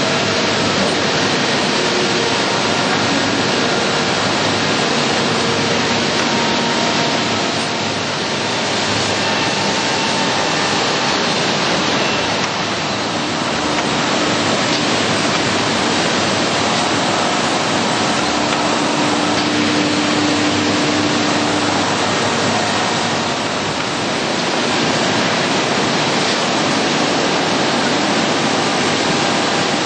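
A Stemas single-sided edge sanding line running, with its sanding heads and dust extraction making a steady, loud hiss. Faint tones come and go over the hiss.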